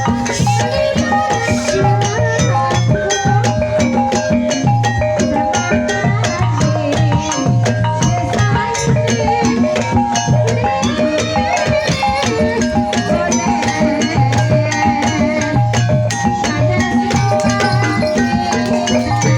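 Javanese gamelan music accompanying an ebeg hobby-horse dance: struck tuned keys play repeating melodic patterns over a steady beat of low drum strokes.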